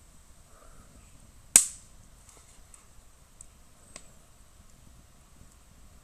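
Firewood in a small wood-burning camp stove pops once with a single sharp, loud crack about a second and a half in. A faint click follows a couple of seconds later.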